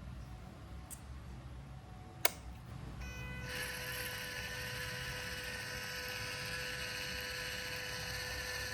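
Small electric motor and gear drivetrain of an MN78 1/12-scale RC car running with a steady, even-pitched whine from about three seconds in, after a single sharp click.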